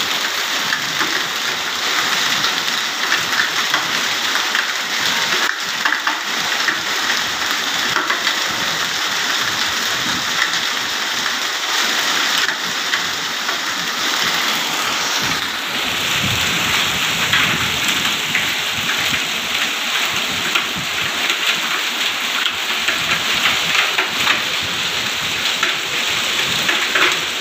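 Heavy rain mixed with hail pelting ground already white with hailstones and lying under water: a dense, steady patter of many small hits.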